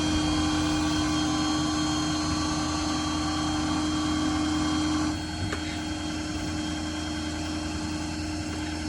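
Truck-mounted IMT crane's hydraulics running at full speed off the Ford 6.7 Powerstroke diesel, a steady hum with a whine. About five seconds in the crane function stops: the whine drops out with a small click, leaving the diesel running.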